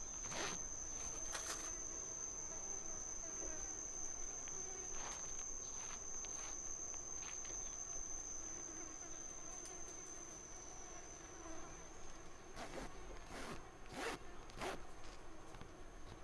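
An insect calling with one steady high-pitched tone, a little weaker about twelve seconds in, over a scatter of short soft rustles from rope being pulled and knotted by hand, more of them near the end.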